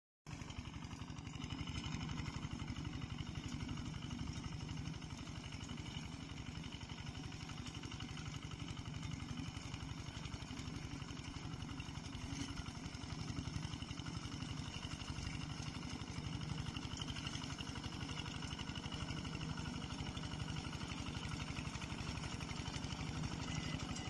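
4GK-90 reaper binder's 6.6 hp water-cooled diesel engine running steadily under load as the machine cuts grain, with a dense low rhythmic pulse.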